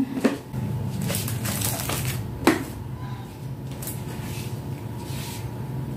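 Kitchen items and their plastic packaging being handled and set down on a tabletop: rustling with a few clicks and knocks, the sharpest about two and a half seconds in, over a steady low hum.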